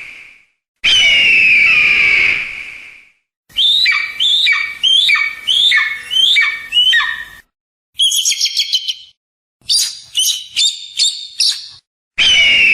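Eagle calls: first a long harsh scream that falls in pitch, then a run of about six quick down-slurred notes, then bouts of rapid high chittering. The calls are separated by abrupt silent gaps.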